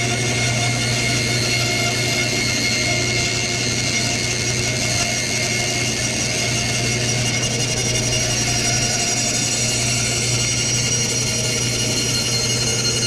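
Bandsaw with a 1/4-inch blade running steadily as a wood blank is fed slowly through it on a tight curve.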